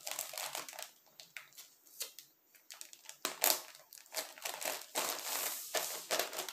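Clear plastic packaging bag crinkling under the hands as a round sticker is pressed onto it and the bagged crochet rugs are smoothed flat. A run of crackles at first, a quieter stretch with scattered ticks, then louder, denser crinkling from about three seconds in.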